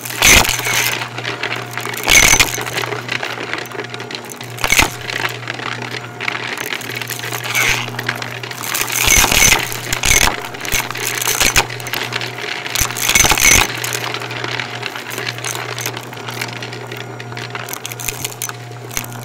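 Shark Navigator upright vacuum running with a steady hum while sucking up a crunchy debris mix, hard bits clicking and clattering through it in bursts every second or two, the loudest about 2 s in, around 9 to 10 s and around 13 s.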